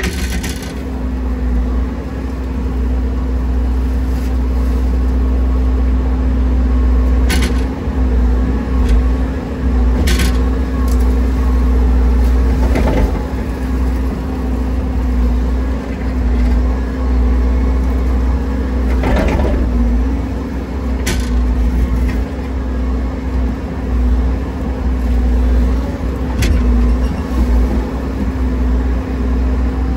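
Heavy earthmoving machine's engine running steadily, a constant low drone with a steady hum, broken by a handful of sharp knocks and clanks from the working equipment.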